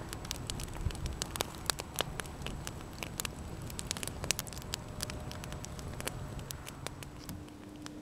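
Wood fire of branches and logs burning, crackling with many irregular sharp pops and snaps that thin out near the end.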